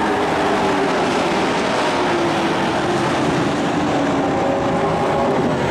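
Dirt-track race trucks running at speed around the oval, their engine pitch sliding up and down as they pass.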